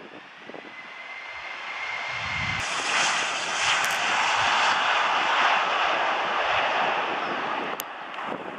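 Boeing 737-700 airliner's CFM56 turbofan engines at takeoff thrust as the jet rolls, lifts off and climbs away. A fan whine rises in pitch during the first two seconds while the engine noise builds. The roar is loudest through the middle and eases off near the end.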